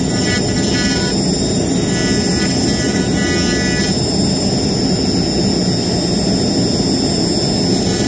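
Laguna iQ CNC router's spindle running with a steady high whine as a 60-degree V-bit carves into a wooden board at 100 inches per minute, over a steady loud rushing noise. A higher tone comes and goes a few times in the first half.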